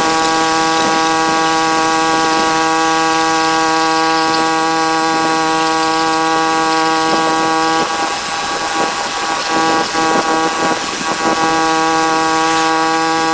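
Pressure washer running steadily with a constant engine hum under the hiss of the spray. About eight seconds in the sound turns rough and uneven for a few seconds, then goes steady again near the end.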